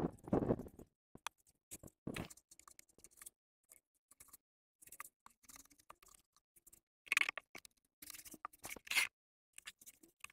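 A paintbrush scratching and scraping over a dry mud-plaster stove as a whitewash is brushed on, in short strokes with pauses, a few louder strokes a little past halfway.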